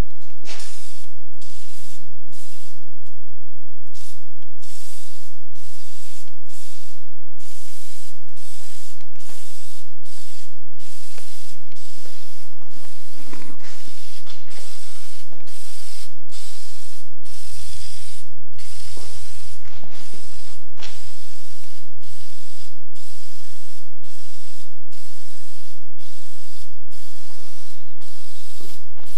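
Aerosol spray-paint can hissing in many short bursts, a fraction of a second to about a second each with brief gaps, as paint is sprayed onto a metal rail. A steady low rumble runs underneath.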